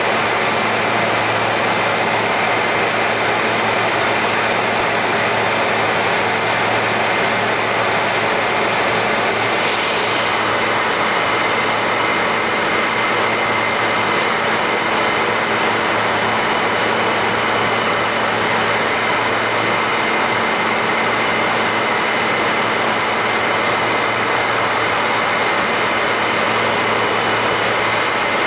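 Single-engine Cessna floatplane heard from inside the cockpit in flight on the landing approach: the engine and propeller run steadily under a constant hiss of rushing air.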